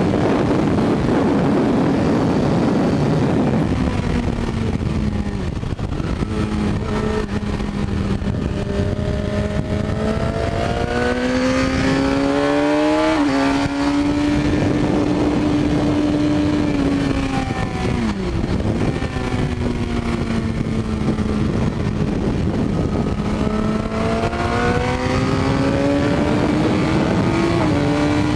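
Suzuki GSX-R K6 sportbike's inline-four engine at speed on track, its pitch climbing under acceleration and falling when the throttle comes off, with a few sharp drops. Wind rushes over the microphone throughout.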